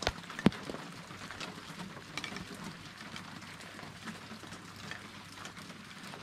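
Steady rain falling, with many scattered drops ticking on nearby surfaces and one sharper drop hit about half a second in.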